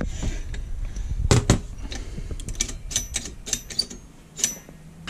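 Metal clicks and clinks from a train truck's steel brake linkage and wheels being handled, with a louder double knock about a second in and a run of lighter clinks after it, some ringing briefly.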